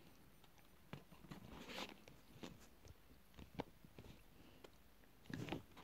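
Faint chewing of a mouthful of raw corn starch, heard as scattered soft clicks and crunches, with a louder burst of sound near the end.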